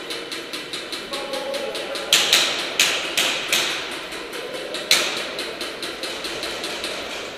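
Airsoft guns firing: a steady stream of sharp shots about eight a second, with a few louder, closer cracks from about two to five seconds in.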